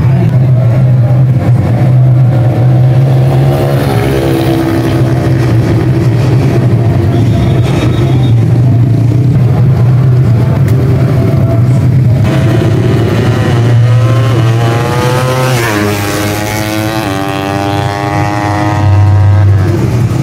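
Drag-race motorcycle engines revving hard over a steady low drone, their pitch climbing and dropping several times. About three-quarters of the way through, one engine's pitch climbs steeply as the bike accelerates.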